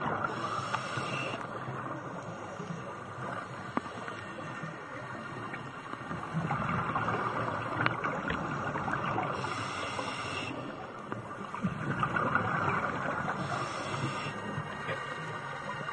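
Underwater ambience on a reef: a steady rushing hiss with a few faint ticks, broken three times by bursts of a nearby scuba diver's regulator exhaust bubbles, once near the start, once about nine seconds in and once about thirteen seconds in.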